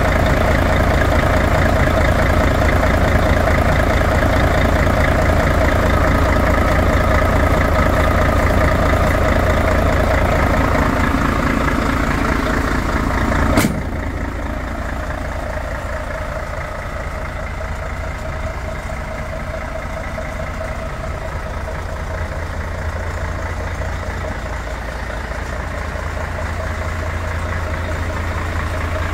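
Mercedes-Benz Actros 1840's V6 diesel engine idling steadily, heard close up at first. About halfway through there is a sharp click, and the idle then sounds quieter and duller.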